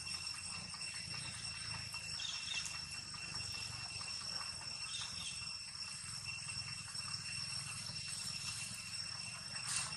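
Outdoor ambience with a steady, high-pitched insect drone that holds one pitch throughout, a few faint short chirps about two and five seconds in, and a brief rustle near the end.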